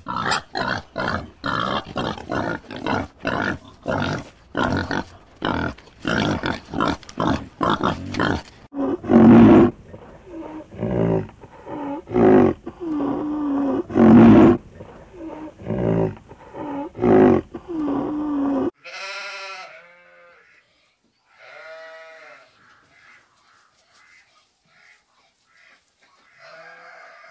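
Domestic pigs grunting in a fast run, about two grunts a second, then fewer, deeper and louder grunts. After a sudden drop in level come two short, faint bleat-like calls.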